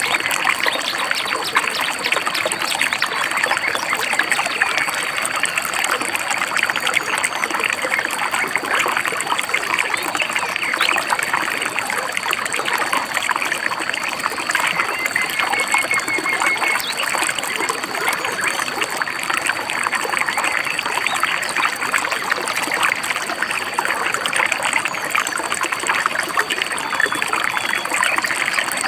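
Shallow stream babbling and trickling steadily, with a brief, quick series of bird chirps about halfway through.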